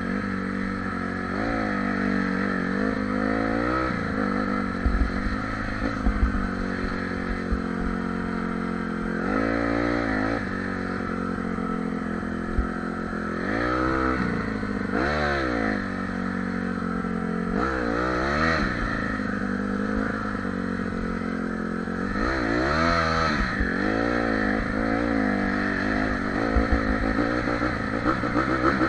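Honda CRF150R dirt bike's single-cylinder four-stroke engine running under way on a muddy trail, revving up and easing off about five times. A few knocks from the bike bouncing over ruts come through along with it.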